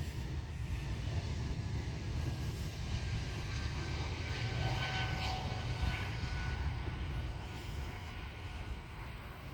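Breeze Airways jet taking off, its engines giving a steady low rumble under a thin whine that slowly drops in pitch. It is loudest around the middle and fades a little near the end as the plane climbs away.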